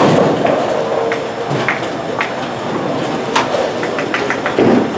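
Bowling alley din: bowling balls rolling down the lanes and pins clattering, with many sharp clacks and a loud knock right at the start.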